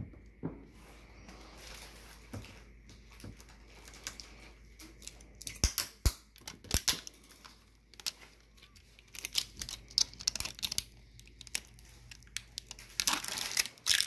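Plastic protective film being peeled off a new stainless steel dishwasher: sticky crackling and tearing in several short runs, with crinkling of the loose film. The loudest crackles come about six seconds in and again near the end.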